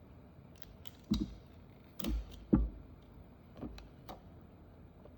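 A handful of short, separate knocks and clicks of small tools and plastic phone parts being handled on a work surface during smartphone disassembly, the sharpest about halfway through.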